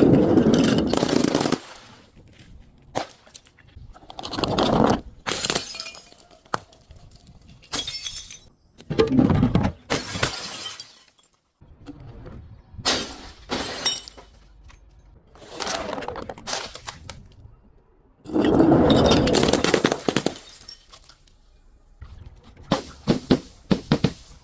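Glass bottles breaking and shattering, over and over: about seven separate crashes, each lasting a second or two, with short pauses between them.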